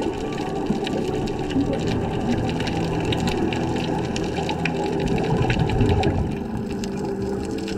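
Underwater noise picked up by a diving camera: a steady, muffled rush of water and bubbling.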